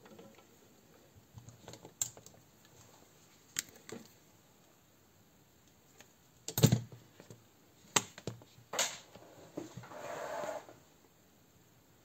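Scattered clicks and knocks of a disassembled Tokyo Marui M9 electric airsoft pistol's frame and small parts being handled on a rubber work mat, the loudest knock about six and a half seconds in. A brief rustling scrape follows near the end.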